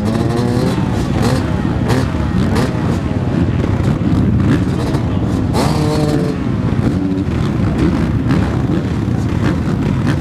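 Several motocross bikes running together, their engines revving up and down in throttle blips, about a second in and again around six seconds in.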